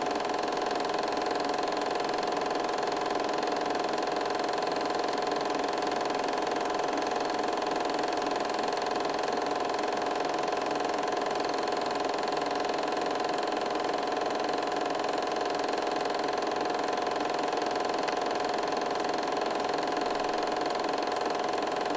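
8mm film projector running: a steady, unchanging mechanical whir with a strong hum.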